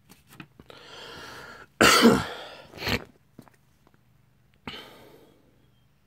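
A man coughs hard about two seconds in, then once more briefly, amid the crinkling rustle of a bubble-wrapped mail package being handled.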